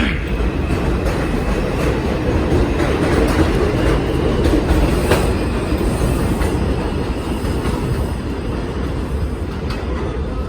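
New York City subway 5 train pulling out of the station after its doors close: a steady loud rumble of the cars with wheels clattering over the rail joints, easing slightly near the end.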